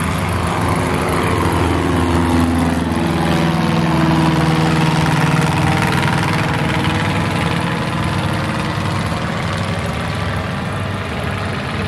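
Engine and propeller of a pusher-prop ultralight floatplane running as it taxis along the runway, loudest about four to five seconds in, then fading slightly with the pitch dropping a little.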